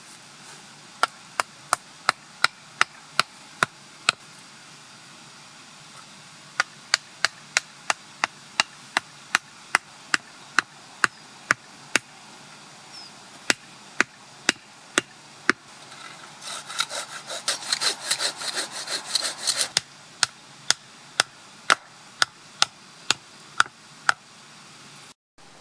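A hatchet's poll driving a wooden stake into forest ground: runs of sharp wooden knocks, about two to three a second, with short pauses between the runs. About two-thirds of the way in there are some three seconds of rapid, rough scraping.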